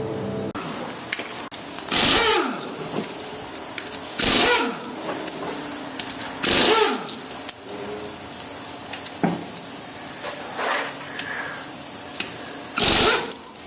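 Pneumatic impact wrench working the lug nuts on a minivan's wheels: four short loud bursts a couple of seconds apart, each followed by a falling whine as the tool winds down, with a few weaker bursts between.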